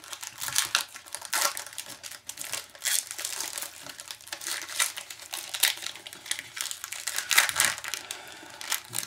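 Shiny foil trading-card pack wrappers crinkling in the hands, in quick irregular crackles, as packs are opened and the cards handled.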